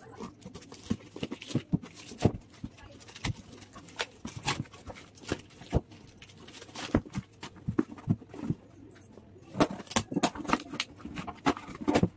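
Hands opening a cardboard shipping box: irregular crackles, rips and rustles of cardboard flaps and plastic wrapping being pulled apart, coming in clusters.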